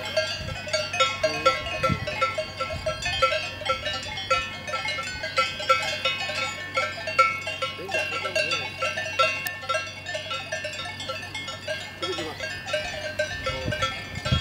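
Cowbells on a grazing herd of cows clanking continuously and irregularly. Several bells of different pitches overlap, a few strokes a second.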